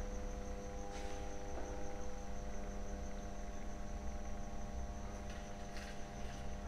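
Steady hum made of several held tones, with a high, faintly pulsing whine above it and a soft click about a second in.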